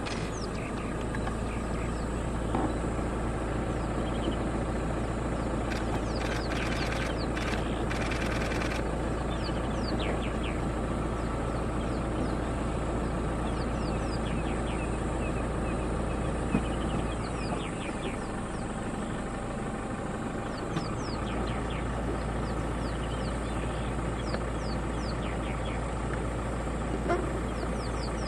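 Vehicle engine idling steadily, with birds chirping over it.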